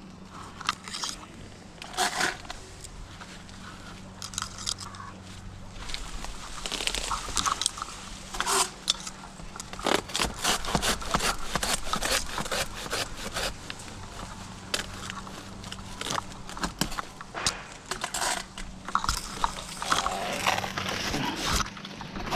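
Dry queen palm fronds crackling, scraping and snapping in irregular bursts as they are cut and handled during trimming, over a faint steady low hum.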